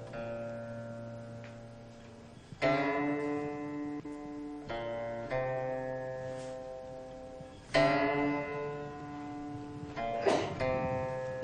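Slow background music on a plucked string instrument: notes and chords struck every few seconds, each left to ring and fade.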